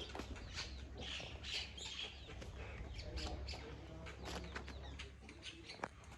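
Birds chirping and calling in short, quick notes, densest in the first couple of seconds, over a steady low rumble.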